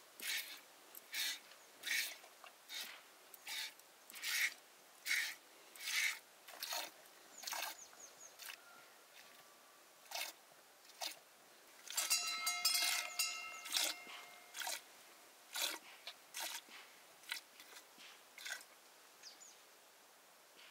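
Kitchen utensil work: short scraping strokes repeat about every 0.8 s, then come unevenly. A brief clatter of ringing metal comes about twelve seconds in.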